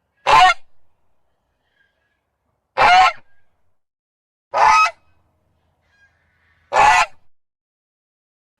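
Velociraptor sound effect: four short calls, each about half a second long, roughly two seconds apart, with dead silence between.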